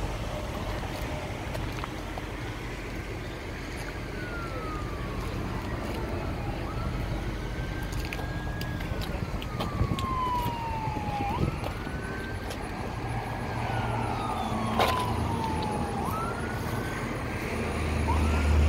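An emergency vehicle's siren wailing, its pitch sweeping slowly up and then falling back, over and over every few seconds, over steady background noise.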